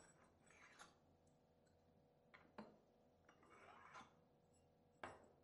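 Faint handling noises from a perspirometer being taken apart: a couple of light clicks, a soft scrape of a plate sliding along the rods, then a sharper click about five seconds in.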